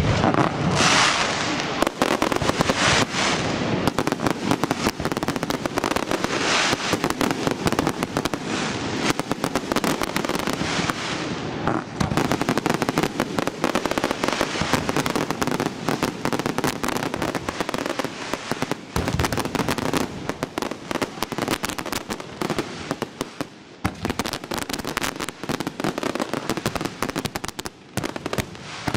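Aerial fireworks display: a dense, unbroken run of shell bangs and crackling, easing a little in the last few seconds.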